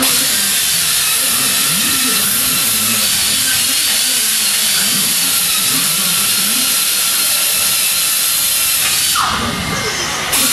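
Loud, steady hiss of a metalworking tool on car bodywork, easing off about nine seconds in, then coming back briefly just before the end.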